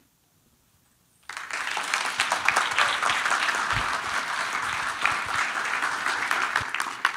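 Audience applauding at the end of a talk: the clapping starts suddenly after about a second of quiet, holds steady, and dies away near the end.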